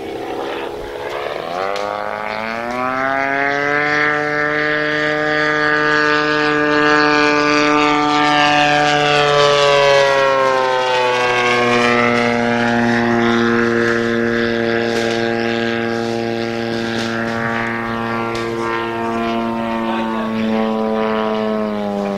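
Desert Aircraft DA-70 twin-cylinder gasoline engine of a large RC aerobatic plane in flight, driving a 24x10 carbon-fibre propeller. Its note climbs in pitch about two seconds in, holds steady, falls around ten seconds in, and drops again near the end.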